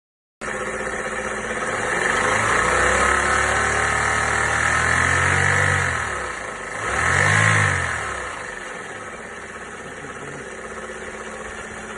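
Chevrolet Aveo's F14D3 1.4-litre four-cylinder engine revved up and held for a few seconds, dropping back, revved briefly once more, then idling. It has a loud knocking and rattling that the owner cannot trace.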